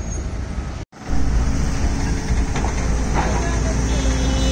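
Heavy diesel engine running with a steady low rumble. The sound drops out for a moment about a second in and comes back louder, with two short sharp knocks a little past the middle.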